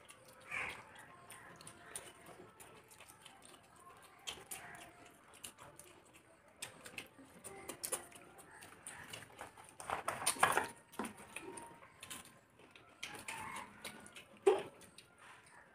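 Quiet eating sounds of rice and curries mixed and eaten by hand from plates: soft squelches, small smacks and clicks of chewing and fingers on the plate, with a louder cluster about ten seconds in and a short sharp sound near the end.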